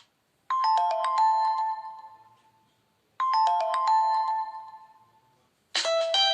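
Preloaded Nokia Lumia 521 phone tone: a quick falling run of notes that dies away, played twice about three seconds apart. Near the end a different, busier tone begins.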